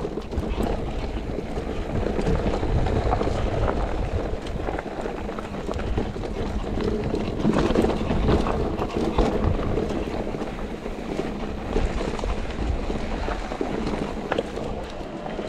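Mountain bike riding down a dirt trail: a steady rush of wind on the action camera's microphone and rolling tyre noise, with frequent small knocks and rattles from the bike over the rough ground.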